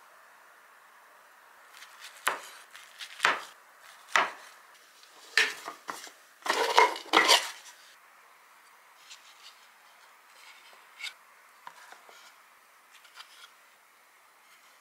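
A kitchen knife cuts through rolls and knocks on a cutting board: single sharp taps about a second apart, then a louder quick cluster a little past the middle. After that come only soft, light clicks as chopsticks place the pieces into a wooden lunch box.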